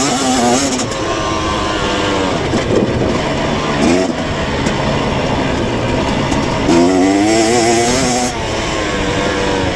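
KTM 250 dirt bike engine under way, its pitch rising and falling with the throttle, over a steady noisy rush. The revving is strongest from about seven seconds in until just past eight.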